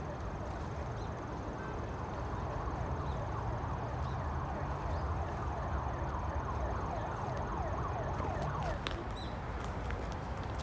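Steady outdoor background: a low rumble under a faint murmur of many distant voices.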